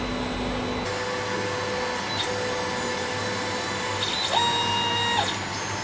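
Creality Ender-5 Plus 3D printer auto-homing: its stepper motors whine at steady pitches that step up and down as the axes move. About four seconds in, a higher whine rises, holds for about a second, then falls back, over a steady low hum.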